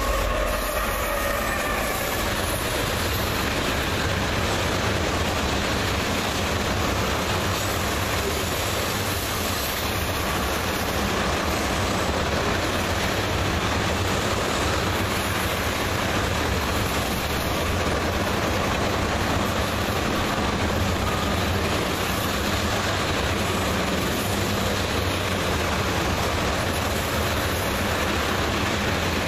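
Freight train tank cars rolling past at speed: a steady rumble and rush of steel wheels on rail. A high whine from the passing train fades out in the first couple of seconds.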